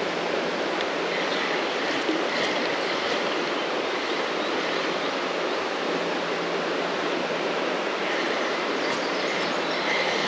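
Steady rush of creek water running high after rain.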